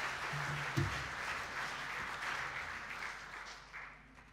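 Audience applauding, the clapping dying away over the last second or so. A single knock sounds a little under a second in.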